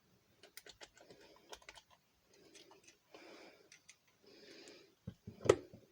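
Small metal clicks and brief scraping as a screwdriver and pliers work at a Master Lock No. 5 padlock's core, with one louder click about five and a half seconds in.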